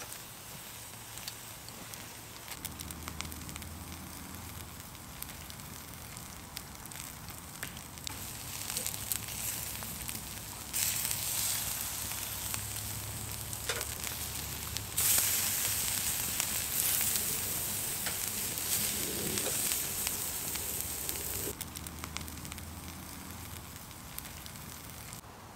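Marinated lamb sizzling on a wire grill over fire-pit coals, with the embers crackling lightly. The sizzle grows louder about eleven seconds in and eases off again a few seconds before the end.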